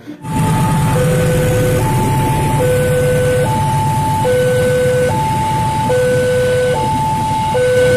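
Railway level-crossing warning alarm sounding a repeating electronic two-tone chime, the two notes alternating slightly faster than once a second, over the steady rumble of a freight train passing the crossing.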